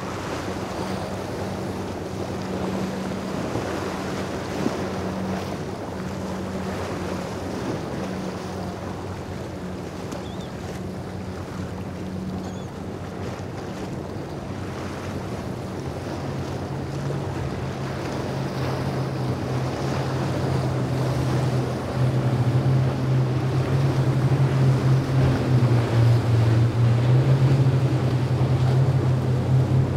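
Large motor yacht running fast through choppy sea: a steady engine drone under the rush of hull spray and waves. A deeper engine note comes in about halfway and grows louder as the boat closes in and passes.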